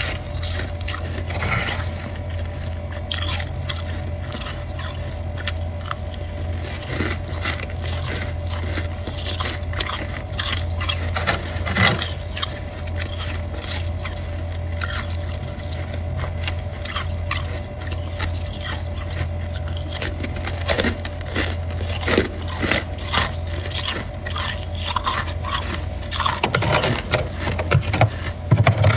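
Metal spoon scraping and chipping thick freezer frost, in irregular crunchy strokes that grow louder and busier near the end, over a steady low hum.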